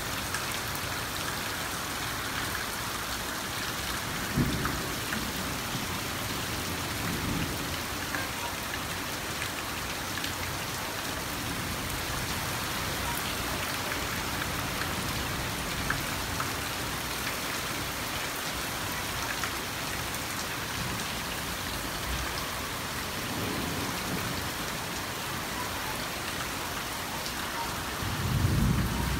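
Steady rain falling on garden leaves, lawn and paving, an even hiss throughout, with a few short low rumbles about four seconds in, around seven seconds, and again near the end.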